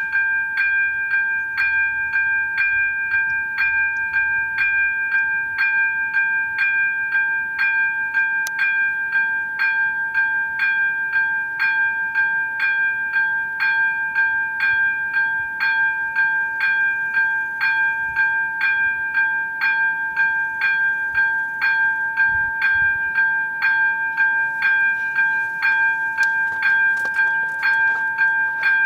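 Electronic warning bell of a Czech railway level crossing ringing in a fast, even ding-ding about twice a second. It sounds because the crossing has been triggered by an approaching train while the barriers are still up.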